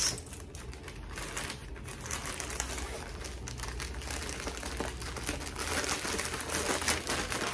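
Plastic shipping bags and packing paper crinkling and rustling as they are handled, a continuous run of small crackles.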